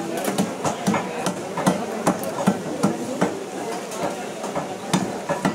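Fish being chopped with a heavy blade on a wooden block: sharp, regular knocks about two and a half a second.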